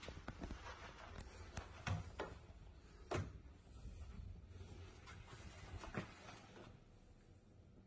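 Faint movement noise: a handful of scattered soft knocks and clicks over a low rumble, the loudest about three seconds in.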